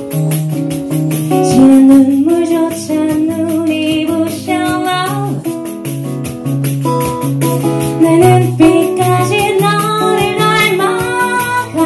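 A woman singing a pop song live into a microphone over instrumental accompaniment with a steady beat; her voice drops out for a moment about halfway through, then the singing comes back.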